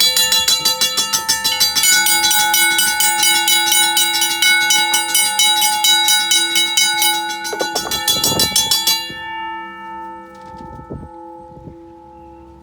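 Electromechanical railroad crossing bells ringing with rapid, evenly spaced strikes. A second bell with a lower tone joins about two seconds in. About nine seconds in the striking stops, and the bells ring out and fade, with a few low knocks.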